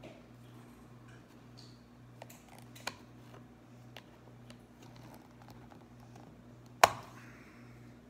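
Needle-nose pliers working the metal pin in a high-heel shoe's heel, making a few faint small clicks, then one sharp knock near the end, over a steady low hum.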